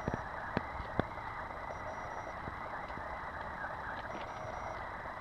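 A few soft hoof knocks from a walking horse in the first second, over a steady hiss of outdoor background noise.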